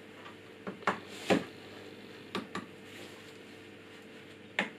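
Handling noise from an LG SJ3 sound bar being turned over and unwrapped on a table: about half a dozen sharp knocks and clicks, the loudest about a second in, over a faint steady hum.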